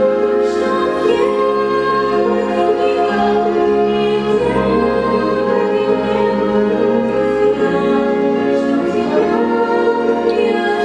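Slow classical-style music with sustained vocal or choral singing over held chords, changing notes every second or two.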